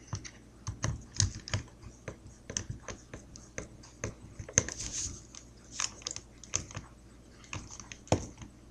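Irregular small clicks and taps of a screw being driven into a paintball gun by hand, the tool and parts knocking against the gun's body as it turns.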